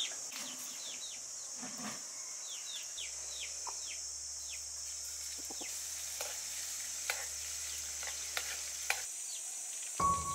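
Steady high sizzling hiss from a pan of hot liquid on a charcoal brazier. Runs of short falling bird chirps come near the start and again a few seconds in, and a few light metal taps come in the second half.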